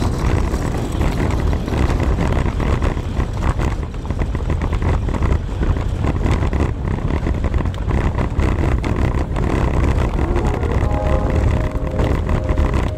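Road and wind noise from a velomobile in motion: a steady low rumble with many small rattles.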